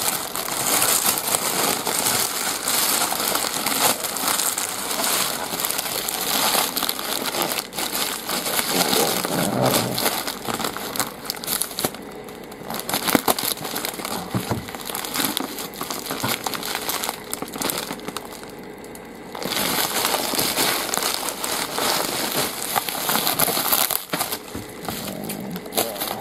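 Plastic packaging being unwrapped by hand: a black plastic bag and bubble wrap crinkling and rustling, easing off twice partway through.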